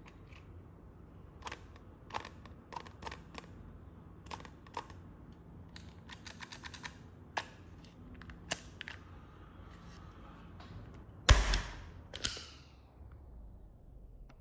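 Revolver mechanism handled: a run of small sharp metallic clicks at an uneven pace. Near the end comes one loud shot with a short ringing decay, then a second, weaker pop about a second later.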